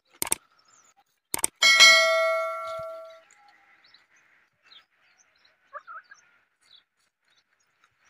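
Mouse-click sounds followed by a bright bell ding that rings and fades over about a second and a half: the stock sound effect of a subscribe-button animation. A few faint chicken calls follow.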